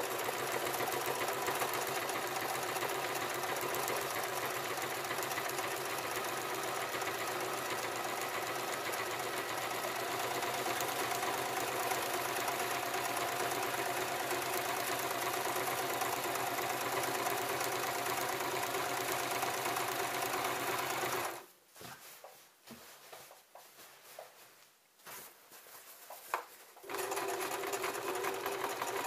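Electric sewing machine running steadily, stitching a straight seam through hammock fabric. About two-thirds of the way in it stops for roughly five seconds, with a small click in the pause, then starts up again near the end.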